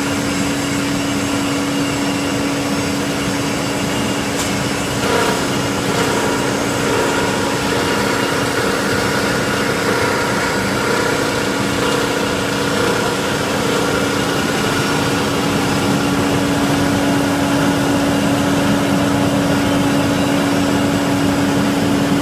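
Copper wire shredder and its separator running, making a loud, steady machine drone with a constant low hum. About five seconds in a second, higher tone joins and fades out about ten seconds later.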